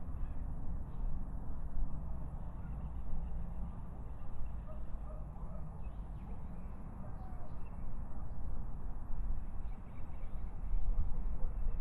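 Faint bird calls over a steady low rumble in a thorn forest.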